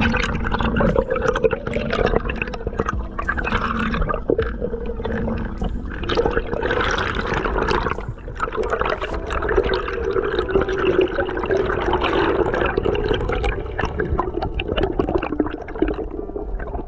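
Underwater sound picked up by a camera moving through the sea over a reef: a rushing, gurgling water noise with scattered sharp clicks.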